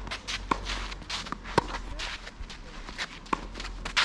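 Tennis rally: a ball struck by rackets and bouncing on the court, heard as several sharp pocks one to two seconds apart, with players' footsteps scuffing across the court between them.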